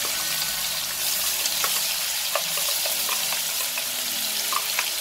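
Wet ground coconut, garlic and ginger paste hitting hot tempered oil in a kadhai, sizzling steadily as the water in the paste meets the oil, with a few scattered crackles and light clicks.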